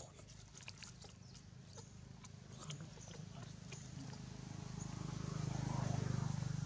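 Dry leaves crackling in short clicks as the macaques shift on the leaf litter, over a steady low hum that swells about five seconds in.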